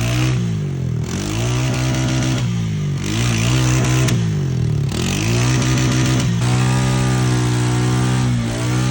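Honda Rubicon ATV engine revving under throttle, its pitch dropping and climbing again several times, then holding high for a couple of seconds before a brief dip near the end.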